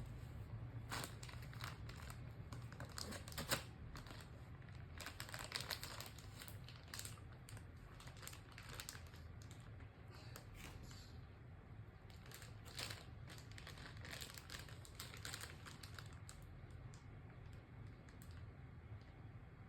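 Soft plastic baby-wipes packet crinkling and clicking as a baby handles it, in faint irregular flurries with pauses between, and one sharper click about three and a half seconds in.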